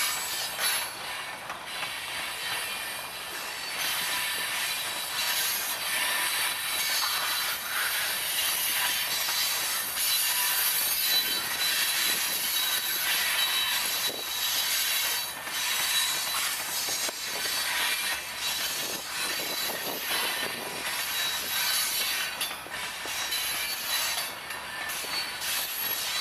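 Covered hopper cars of a long freight train rolling past: a steady rush of steel wheels on rail, with scattered clicks and a thin, steady high squeal from the wheels.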